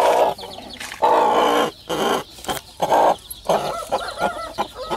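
Aseel mother hen with a chick growling in several short, harsh bursts, a hen's protective warning at being disturbed, turning to softer wavering calls in the last second or so.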